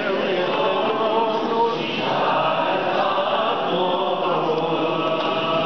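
Orthodox liturgical chant: voices singing a slow, sustained melody without a break.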